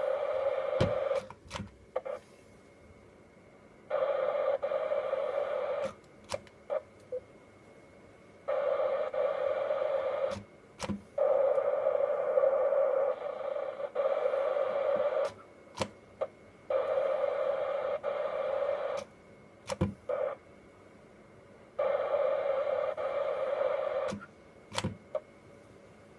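Yaesu FT-857 transceiver's speaker putting out FM receiver hiss that opens and shuts abruptly in stretches of one to four seconds, with short sharp clicks in the gaps, as the squelch opens and closes while the radio steps through memory channels for local repeaters.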